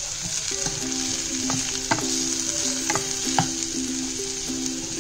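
Wooden spatula stirring and scraping diced potatoes and ground peanuts around a non-stick frying pan, with irregular taps and scrapes over a steady sizzle of hot oil.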